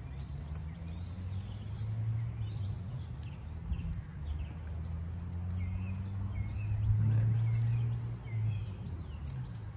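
Small birds chirping in short repeated calls over a low, steady motor hum that gets louder about seven seconds in.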